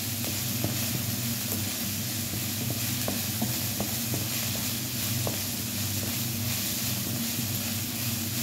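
Minced chicken sizzling in a wok while a wooden spatula stirs it, with small scrapes and taps of the spatula on the pan now and then, over a steady low hum.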